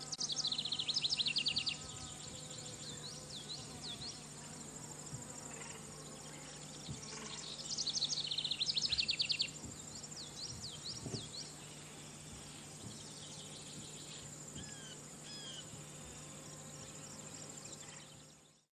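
Steady high-pitched insect chorus with a songbird singing a fast trilled phrase twice, about eight seconds apart, and a few softer chirps between; the sound fades out near the end.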